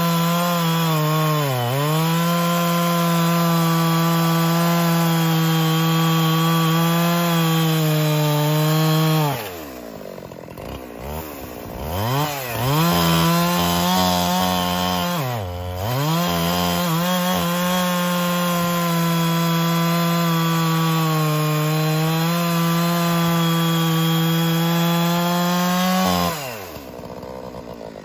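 Husqvarna 372XP two-stroke chainsaw, its muffler outlet opened up, cutting through a thick log at full throttle with a steady high pitch. It dips briefly as the chain bites, drops off for a couple of seconds about a third of the way in, revs back up, and falls away near the end.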